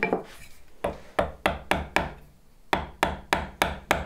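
A narrow Marples bevel-edge chisel jabbed down by hand into the slot of a bridle joint, paring the last of the waste. It makes a quick run of sharp wooden taps, about three a second, then a short pause and a second run.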